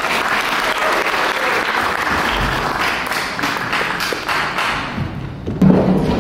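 Audience and performers applauding steadily after a speech. About five and a half seconds in, music starts up with a strong low held tone.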